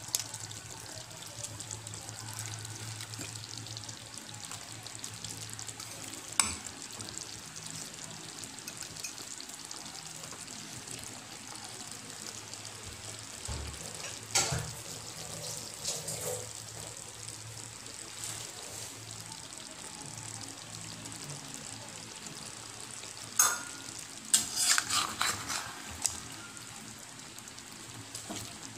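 Shrimp and snake beans cooking in coconut milk in a pan: a steady sizzling hiss, with a few sharp knocks and several close together near the end.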